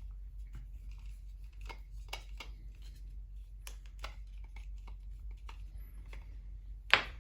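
Light clicks and rubbing from the 3D-printed plastic parts of a cable roller as its drum is twisted by hand, with one sharper click near the end. A low steady hum runs underneath.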